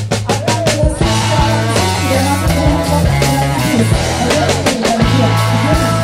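Background music with drums and a steady beat.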